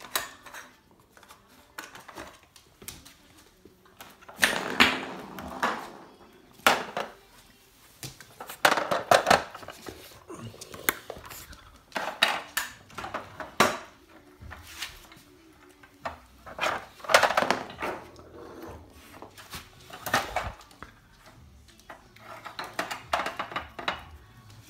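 Hard plastic pieces of a dog puzzle toy clattering and clicking in irregular bursts of knocks as a dog pushes at the sliders and covers.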